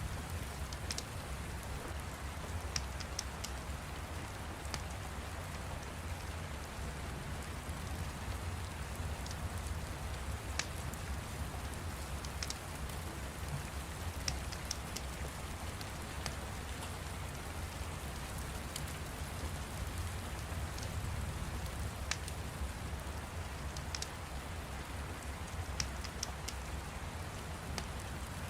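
Steady rain with a low rumble underneath, and short, sharp crackles of a fire popping every second or two at irregular intervals.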